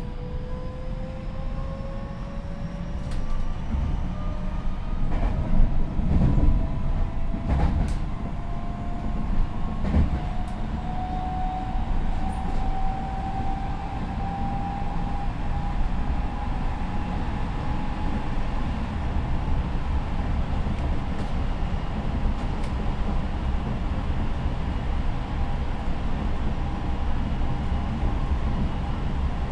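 Tokyo Metro 10000 series train's Mitsubishi IGBT VVVF inverter and traction motors whining as the train accelerates in high-acceleration mode. The whine rises steadily in pitch through about the first half, then levels off and fades. Underneath it, the wheels rumble on the rails from inside the car, with a few clacks over rail joints.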